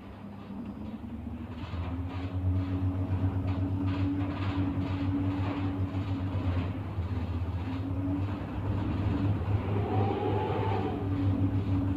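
Small 24 V wind turbine system under load in a gust: a steady mechanical hum and whine that grows louder about two seconds in as the output climbs. Its pitch wavers with the turbine's speed, and a short whine rises and falls near the end.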